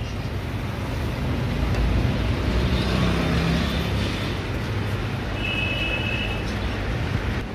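Steady rumble and hiss of road traffic, with a short high-pitched tone lasting about a second, a little past the middle.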